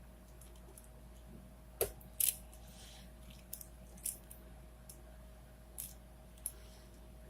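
Plastic clicks of a 4x4x4 Rubik's cube (Rubik's Revenge) being turned by hand: irregular sharp clicks, the loudest pair about two seconds in, over a faint steady hum.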